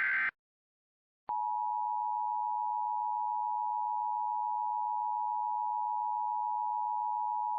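The Emergency Alert System (EAS) alert opens with the end of a SAME header data burst. About a second of silence follows, then the EAS attention signal starts, a steady two-tone beep at 853 and 960 Hz, and holds unbroken.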